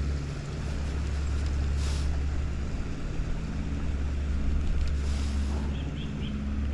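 Steady low rumble and rush of a flowing trout stream, with wind buffeting the microphone. A few short, faint high chirps come near the end.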